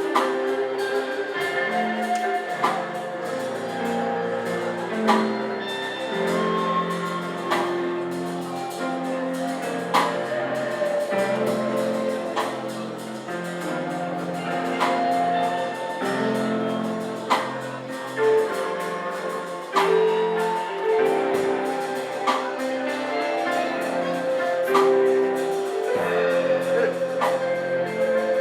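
Church worship music: sustained keyboard or instrument chords in a slow melody with a steady drum beat, as a congregation worship song continues.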